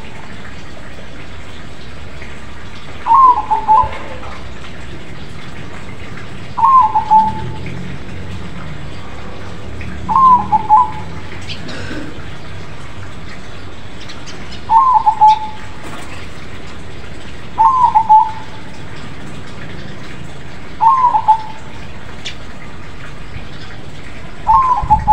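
Crossbred zebra dove (perkutut) cooing: seven short rolling coo phrases, repeated about every three and a half seconds.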